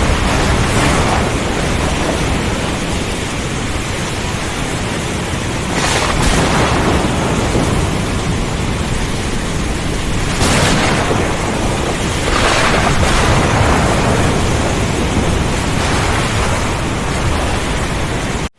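Heavy rain and wind in a thunderstorm, a dense steady hiss, with about five thunder cracks and rumbles swelling over it. The sound cuts off abruptly at the very end.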